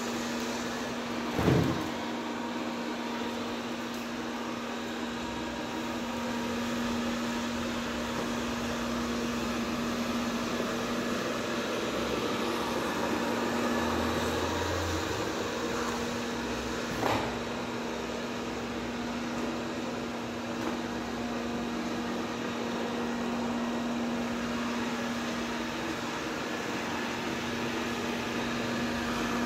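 Robot vacuum cleaner running with a steady motor hum as it drives across a wooden floor. Two short knocks break in, one about a second and a half in and one about seventeen seconds in.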